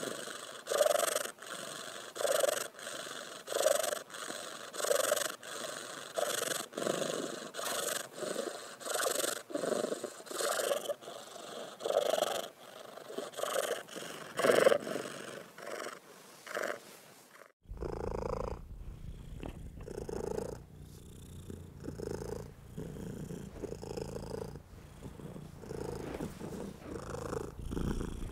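Domestic cat purring, rising and falling about once a second with its breathing. About two-thirds of the way in it switches abruptly to a different, deeper purr.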